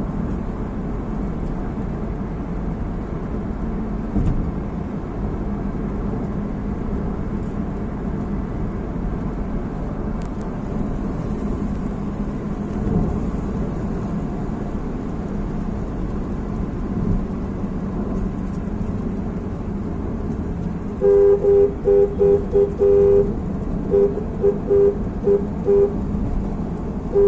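Steady engine and tyre noise heard inside a moving car's cabin. About three-quarters of the way through, a car horn sounds in a quick series of short honks, followed by more short honks near the end; these are the loudest sounds.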